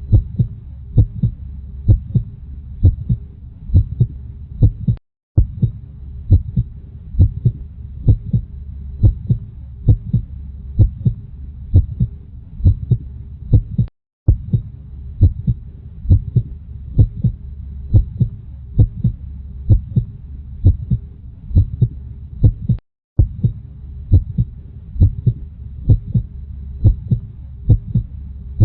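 Heartbeat: regular, evenly spaced thumps over a low steady hum. It drops out to silence for a split second three times, about nine seconds apart.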